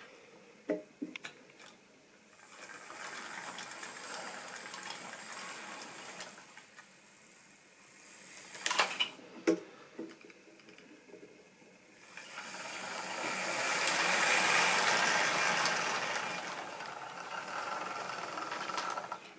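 Model train running along the track, its wheels and motor giving a steady whirring rattle that passes twice, the second time louder, swelling up and fading away. A few sharp clicks come in between the two passes.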